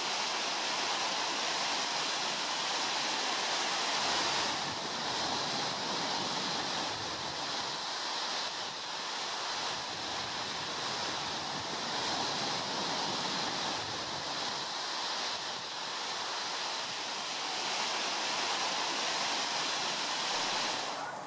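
Sea surf breaking and washing up a sandy beach: a steady rush of waves that swells and eases every few seconds.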